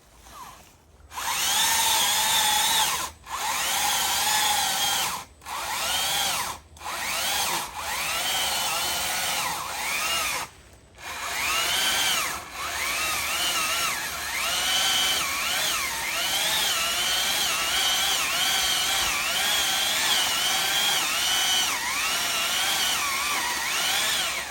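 Stihl MSA 300 battery chainsaw cutting into a tree trunk. Its electric motor whine starts about a second in and is cut on and off several times at first, then runs on steadily. Its pitch dips and recovers again and again as the chain bites into the wood, and it stops abruptly near the end.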